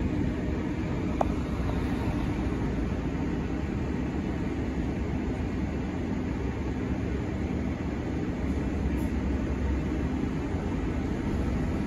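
Steady low rumble and drone of a city bus running, heard from inside the passenger cabin, with a single sharp click about a second in.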